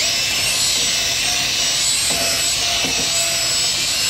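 A power drill spins a metal brush in a Volvo D13 injector cup bore, scrubbing old silicone sealer off the bottom to get down to shiny metal for the cup's sealing surface. The scrubbing is steady and even, with a faint motor whine.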